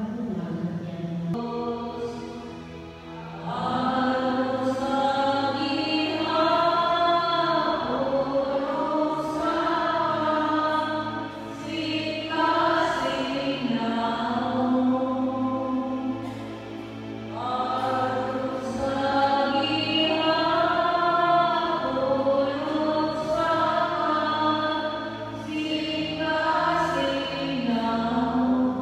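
A choir singing a slow hymn in long held phrases, with brief breaks between them.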